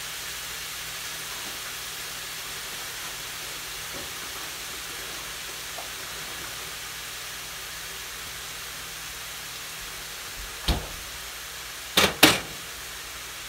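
Sausage sizzling in a frying pan, a steady hiss. Near the end comes one knock, then two louder clacks as a container is set down beside the pan on the stovetop.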